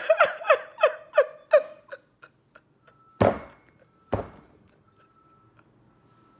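A woman crying in short sobs, each falling in pitch, for about two seconds. Then two loud thumps about a second apart.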